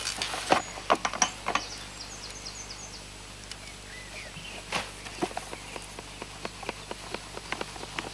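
Plastic bucket knocking and scraping as damp groundbait is tipped into a sieve set on a second bucket. Then light crackling and ticking as the groundbait is rubbed through the sieve mesh by hand to break up the lumps.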